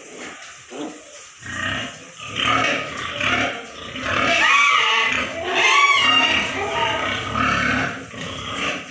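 Pigs squealing and grunting, with short high cries that slide in pitch, growing louder from about a second and a half in.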